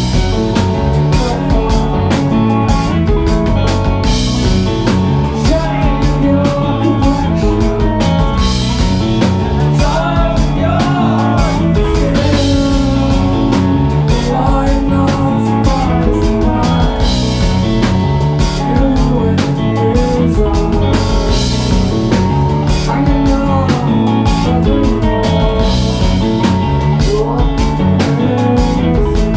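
Live math-rock band playing at full volume: electric guitar, bass guitar and drum kit with cymbal crashes every few seconds, under a male singer's vocals.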